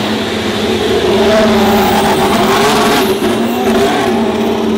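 Haas Formula 1 car's Ferrari 1.6-litre turbocharged V6 hybrid engine running loud at low revs, its pitch wavering slightly as the car leaves the garage.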